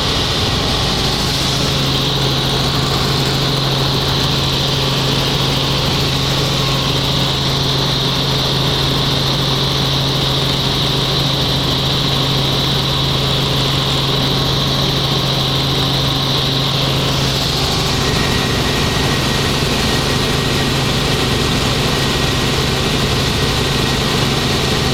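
Helicopter in flight: a loud, steady drone of engine and rotor with a constant high whine over it. About seventeen seconds in, the pitch of the drone shifts slightly.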